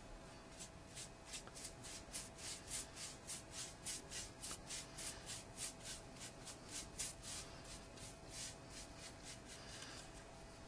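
Liquid hockey tape being brushed onto a taped hockey stick blade: faint, quick rhythmic strokes, about three to four a second, as the second coat goes on.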